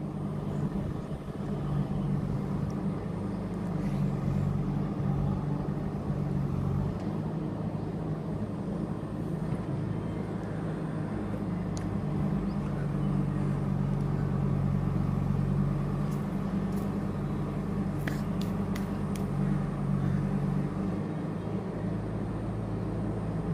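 Steady low rumble with a few faint clicks in the second half.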